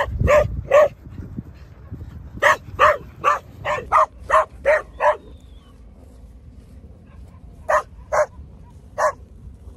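Dog barking in quick runs of short barks, about three a second, then three separate barks near the end.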